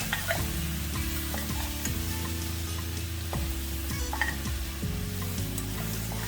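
Lamb trotters frying with ginger garlic paste and onions in a pressure cooker, sizzling steadily, with scattered clicks and scrapes of a spoon stirring the mixture.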